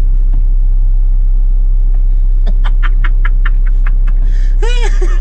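A diesel van's engine and road noise rumbling steadily inside the cab. Midway there is a quick run of about six clicks a second, and near the end a short rising-and-falling pitched sound.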